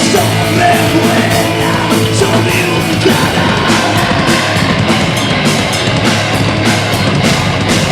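Rock band playing loud, heavy punk-style rock, with drums and guitars, recorded live.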